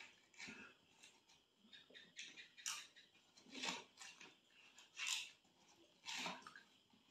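Faint eating sounds: ripe watermelon scooped out with a spoon and chewed, in about five or six short wet bursts roughly a second apart.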